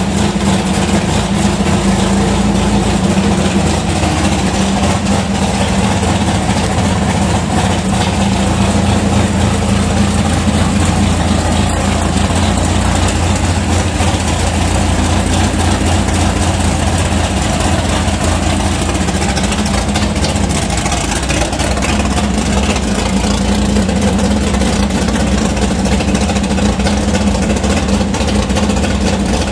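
Big-block Chevrolet V8 in a 1981 Malibu drag car idling steadily, running again after about fifteen years in storage.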